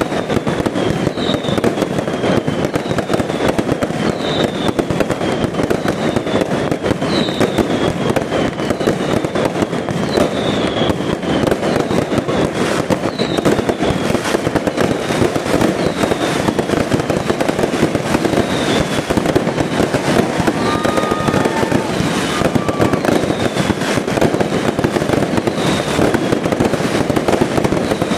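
Fireworks castle burning: continuous dense crackling and fizzing of pyrotechnics, with a high whistle that falls in pitch and repeats every second or two.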